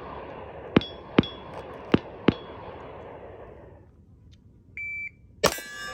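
A few sharp clicks over a low hiss, then about five seconds in a shot timer's short start beep, followed half a second later by a pistol shot hitting an AR500 steel target plate, which rings on.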